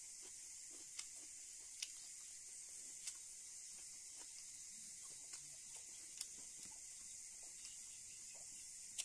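Faint scattered clicks and taps of fingers mixing rice on a plate and pinching salt from a small steel bowl, over a steady soft hiss.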